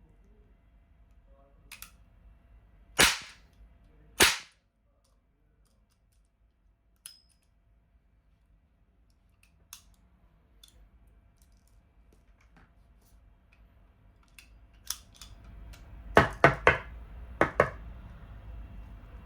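Toy revolver firing: two loud, sharp shots about a second apart, a few light clicks, then four shots in quick succession near the end.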